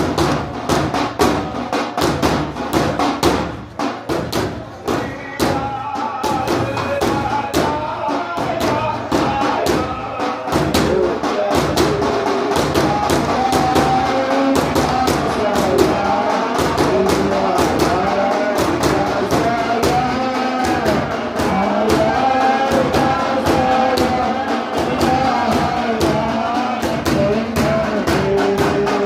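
Daf frame drums beaten in a fast, steady rhythm, joined about five seconds in by voices singing Sufi devotional chant over the drumming.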